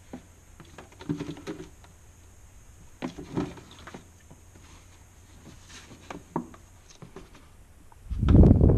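Light knocks, taps and rustles from a plastic brake-fluid catch bottle and its bleed tube being handled, with a louder, dull low thump near the end.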